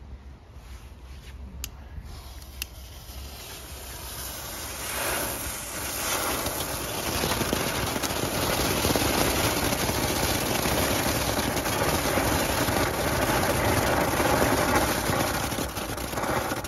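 Small consumer ground fountain fireworks burning, a steady spraying hiss of sparks that swells about four to five seconds in and holds to the end. A couple of sharp clicks come near the start.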